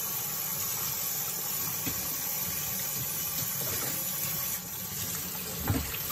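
Kitchen tap running steadily into a stainless steel sink as cups are rinsed under the stream, with one short knock of crockery near the end.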